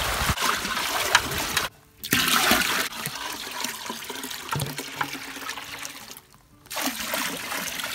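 Maple sap poured from a plastic bucket into a stainless steel pot, splashing and rushing into the pot as it fills. The pouring breaks off suddenly twice for a moment and starts again.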